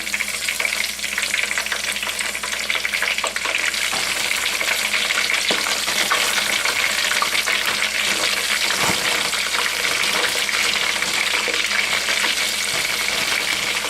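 Eggplant strips, cut like French fries, frying in hot oil: a steady sizzle full of small crackling pops.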